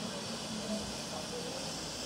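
Steam traction engine standing in steam, giving off a steady hiss.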